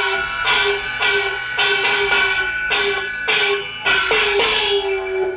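Da luo, a Chinese handheld bronze gong, struck with a padded mallet about twice a second in a staccato pattern. Each stroke gives a shimmering, pitched ring that sinks slightly in pitch and is cut short before the next; the last stroke rings a little longer.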